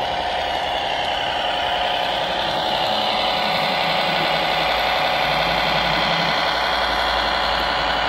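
Radio-controlled model tractor driving, with a steady engine-like drone.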